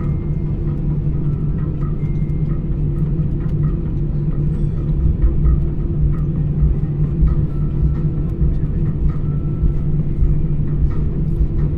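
Steady low rumble and hum heard from inside a moving vehicle, with faint scattered clicks and rattles.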